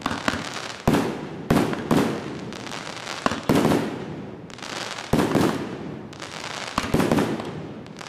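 'Fools Gold' fireworks cake firing shots that break into crackling gold chrysanthemums: a sharp bang every second or so, each trailing off into a haze of crackling.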